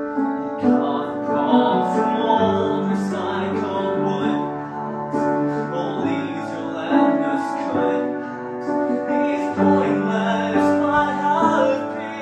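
Grand piano playing a slow ballad in full, loud chords. It comes in suddenly loud right at the start after a quiet passage, then eases off near the end.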